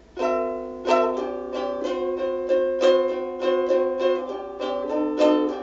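Bruko ukulele strummed in a steady rhythm of chords, an instrumental passage with no singing.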